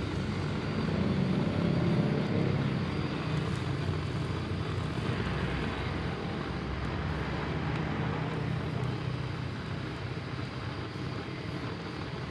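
Gas blowtorch burning steadily with a low flame, a continuous roar, heating the diode joints on an alternator rectifier plate for soldering.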